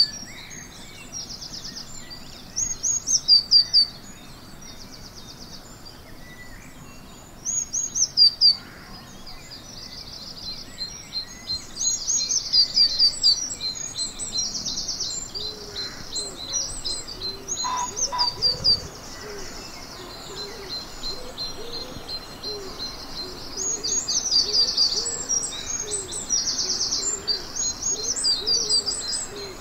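Dawn chorus of songbirds: a nearby bird sings loud, high phrases of rapidly repeated notes several times, each about a second long, over fainter song from other birds.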